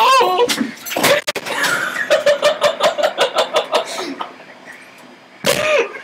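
A person laughing in quick rhythmic pulses, about five a second, for a couple of seconds, after a wavering vocal sound trails off; a sharp knock about a second in and a short vocal outburst near the end.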